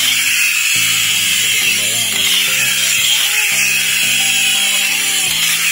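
Small vintage tin push-along toy car whirring steadily and loudly as its wheel mechanism spins, over background music.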